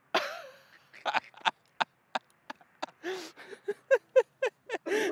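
A sudden loud shout, then laughter in short, rapid bursts that grows livelier in the second half.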